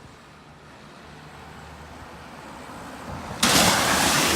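Car driving and speeding up, its low hum slowly growing louder. About three seconds in, a loud rush of wind noise on the microphone cuts in suddenly.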